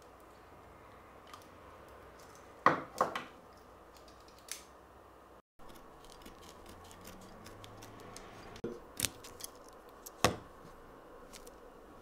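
The small spring-loaded scissors of a Victorinox Swiss Army knife, worked one-handed, snipping through a strip of first-aid dressing material. A few sharp snips and clicks come in two groups, about three seconds in and again around nine to ten seconds, with faint ticking between them.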